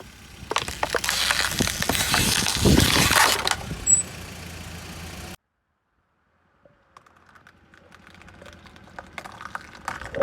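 Loud crunching and crackling of items being crushed, dense with sharp cracks for the first three or so seconds, over a steady running hum. The sound cuts off abruptly about halfway through, and after a short silence only faint scattered clicks are heard.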